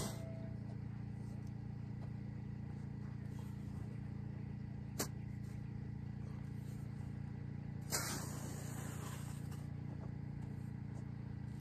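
A shovel digging into loose sandy soil: a sharp click about five seconds in, then a scraping scoop about eight seconds in that fades over a second or so. A steady low rumble runs underneath.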